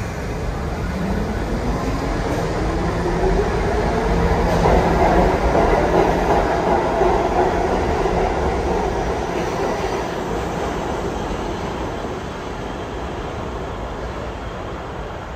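New York City subway train pulling out of an underground station. The motor whine rises in pitch over the first few seconds above a low rumble from the wheels. The sound swells as the cars pass, then fades as the train leaves.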